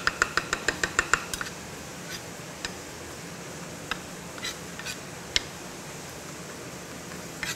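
Knife chopping cilantro on a wooden cutting board: about ten quick taps in the first second and a half, then a few scattered taps, over a steady hiss.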